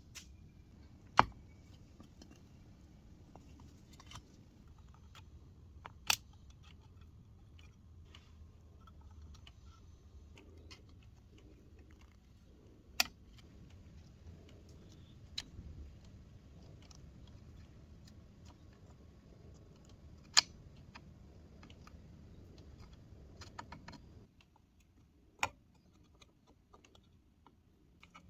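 Scattered sharp clicks and taps of small parts and hand tools being handled on a workbench, a handful of louder single clicks among fainter ones, over a low background rumble that drops away near the end.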